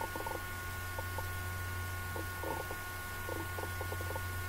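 Steady low electrical hum with a few faint, thin high tones held steady above it, and faint short sounds coming and going underneath.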